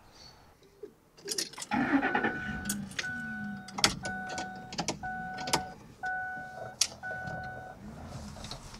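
A car's engine starts about two seconds in and then idles. Over it a dashboard warning chime sounds six times in an even, repeating rhythm. A few sharp clicks come from inside the cabin.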